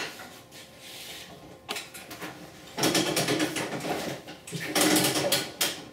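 Vinyl siding panel being handled on a metal saw table, the plastic rattling, flexing and scraping in irregular bursts that start about three seconds in.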